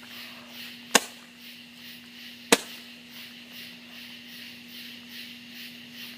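Two sharp firecracker bangs about a second and a half apart, over a steady low background hum.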